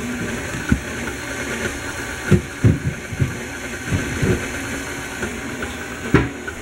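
KitchenAid Classic tilt-head stand mixer running steadily, its beater working batter in the steel bowl, with several dull low thumps scattered through.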